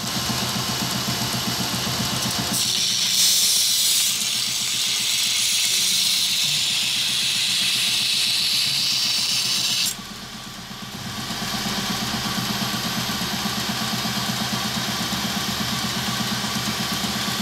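Belt grinder running, with a steel knife blade held flat on the belt to grind down its thickness near the edge. There is a steady motor hum under a hissing grind that gets louder about three seconds in, breaks off sharply around ten seconds, and picks up again more lightly a second or so later.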